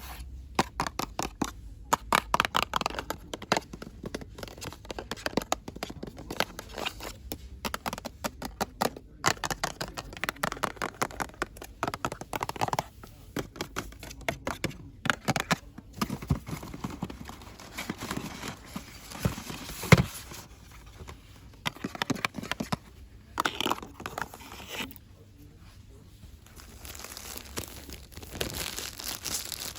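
Close-up crinkling and rustling of product packaging, handled quickly with fast taps and scratches, and one sharp click about two-thirds of the way through.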